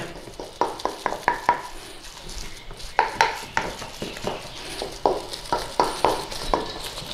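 Wooden spoon stirring and mashing a thick corned beef and mashed potato filling in a stainless steel bowl. It comes as irregular knocks and scrapes against the bowl, some with a short metallic ring.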